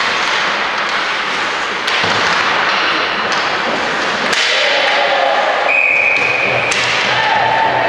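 Ice hockey play in a rink: sharp cracks of stick and puck striking, three times, over a steady hiss of skates and rink noise. A referee's whistle blows for about a second, around six seconds in, and voices from the stands rise toward the end.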